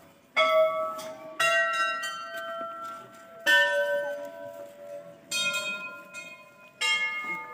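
Hanging Hindu temple bells struck five times at uneven intervals, each strike ringing on with several steady tones as it fades. The pitches differ from strike to strike, so more than one bell is being rung.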